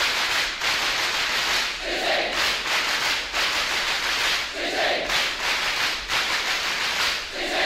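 A large crowd cheering and shouting continuously, with a unison shout or chant swelling up about every two and a half seconds.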